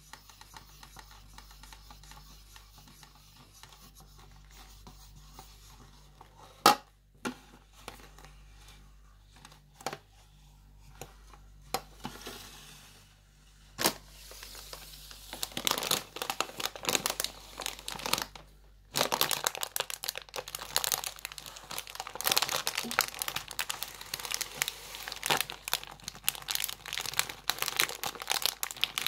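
Leather-gloved fingers rub faintly over a crushed aluminium Coke can, and the can gives a few sharp clicks. About halfway through, the gloved hands start scrunching a plastic crisp packet, and a loud, continuous crinkling follows.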